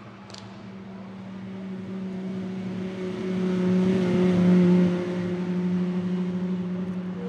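Aston Martin Vulcan AMR Pro's V12 engine driving past at steady, moderate revs, growing louder as the car comes alongside and loudest about four and a half seconds in, then easing slightly as it pulls away.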